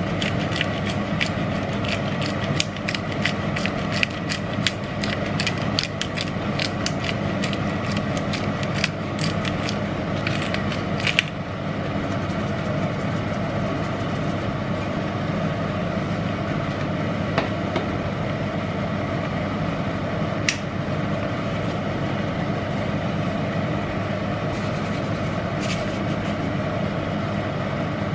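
Bottle pepper grinder being twisted, a rapid run of dry ratcheting clicks that stops about eleven seconds in, over a steady hum.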